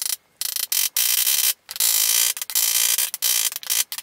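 Kitchen knife rapidly chopping boiled egg whites on a plastic cutting board: fast runs of cuts about half a second long, separated by short pauses.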